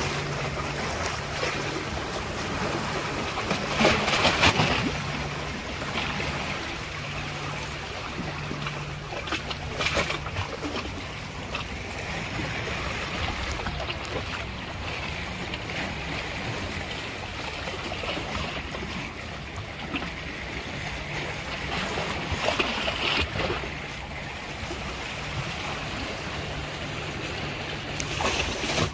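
Sea surf and wind, a steady rushing wash that swells a few times, with a low hum underneath that comes and goes.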